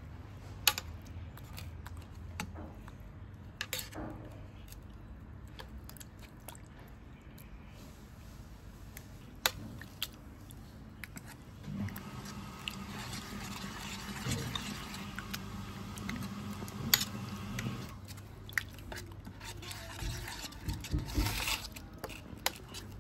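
A metal spoon stirring and scraping a thick, chunky wet sauce in a stainless steel pot, with squelching and a few sharp clinks of spoon on pot. A low steady hum joins for several seconds in the middle.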